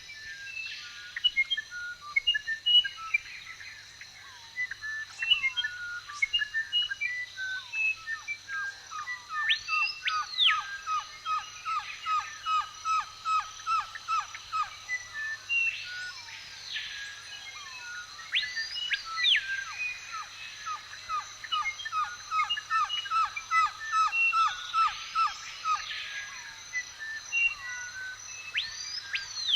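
Several songbirds chirping and singing, one of them giving long fast runs of short repeated notes, over a steady high-pitched background buzz.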